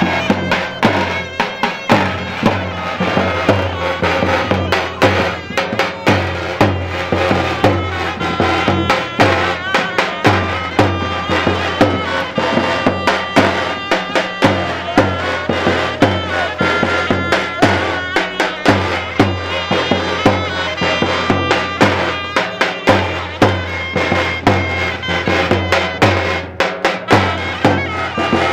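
Live davul and zurna playing a halay dance tune: the zurna, a double-reed shawm, carries a sustained reedy melody over a steady beat of strokes on the large double-headed davul drum.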